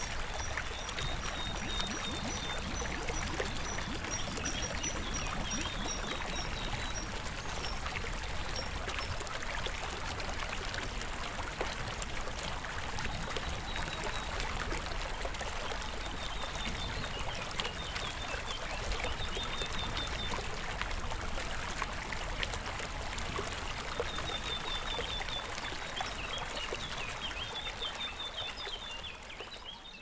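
Stream water trickling and flowing steadily, with a songbird singing short phrases of rapid, high repeated notes several times over it. It fades out at the very end.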